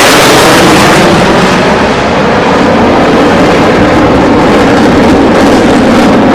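Military jet flying past with a loud, dense jet-engine roar; the high hiss fades after about two seconds as the jet moves away, leaving a lower rumble.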